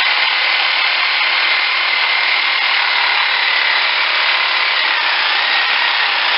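Corded reciprocating saw (sawzall) with a short metal-cutting blade running continuously as it cuts through the bone of a hanging moose hip. Its steady whine dips slightly in pitch about five seconds in.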